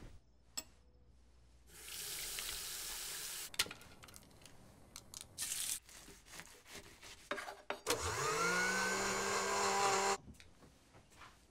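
Kitchen blender motor starting up, rising quickly in pitch and running steadily for about two seconds before cutting off, as a green protein shake is blended. Before it, a stretch of steady hiss and a series of sharp knocks of a knife cutting fruit on a board.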